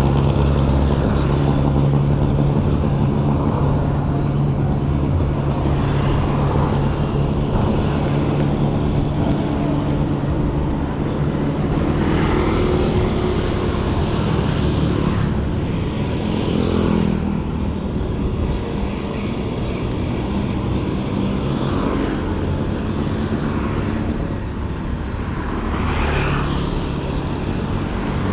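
Tyres rolling steadily on a road with a constant low rumble, while a few vehicles swell up and fade away as they pass.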